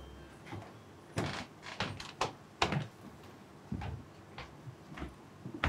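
A door being opened, then a run of irregular knocks and clicks, about seven in all and spread a half-second to a second apart.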